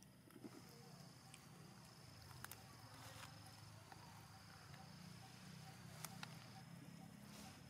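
Near silence with a faint, steady high-pitched insect trill, which breaks off briefly near the end, over a low hum and a few soft clicks.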